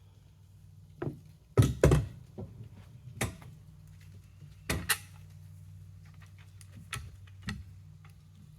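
A series of heavy wooden thuds and knocks, typical of a small log being shifted and bumped against the bed of a portable band sawmill. The two loudest come close together about a second and a half in, with more scattered through the rest, over a faint steady low hum.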